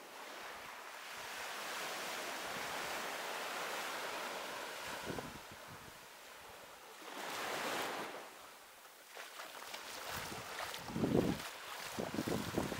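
Sea waves washing up on a beach, the surf swelling and fading twice, with gusts of wind buffeting the microphone near the end.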